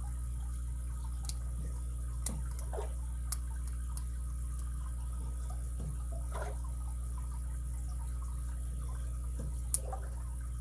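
Lock pick and tension wrench working the pins of a vintage Japanese Alpha pin-tumbler padlock: faint scraping with a few sharp clicks, over a steady low hum.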